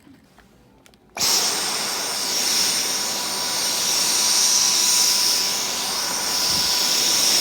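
Dyson vacuum cleaner switched on about a second in, running steadily with a loud rushing hiss and a thin high-pitched whine, then cut off sharply at the end.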